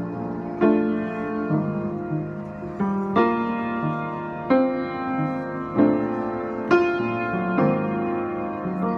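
Public piano played slowly, chords struck about once a second and each left to ring into the next.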